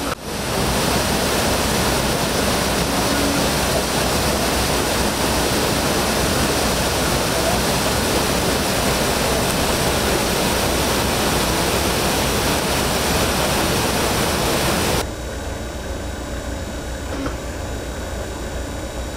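Water gushing through the sluices of a canal lock's upper gate and filling the lock chamber: a loud, steady rush. About 15 seconds in it cuts off abruptly, leaving a quieter steady background noise.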